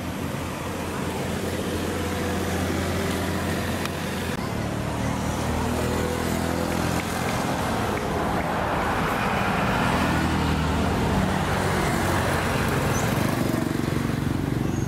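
A motor vehicle engine running steadily amid traffic noise, a low hum with a hiss that swells through the middle.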